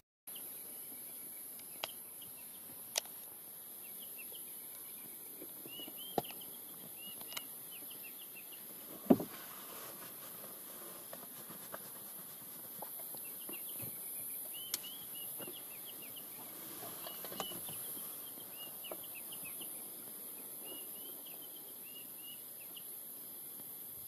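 Outdoor bush ambience: a steady high-pitched insect buzz, with two stretches of faint, quick, twittering chirps and a few sharp clicks, the loudest about nine seconds in.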